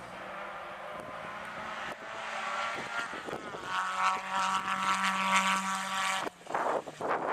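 Single-seater racing car's engine at high revs as it accelerates past, the note climbing and then holding high and steady. It drops out suddenly for a moment near the end.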